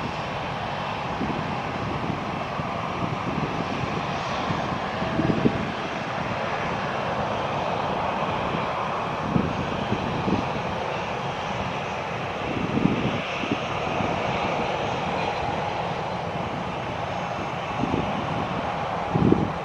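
Airbus A321 jet airliner on final approach, its twin turbofan engines giving a steady rushing jet roar at approach power. A few low bumps of wind on the microphone break through now and then.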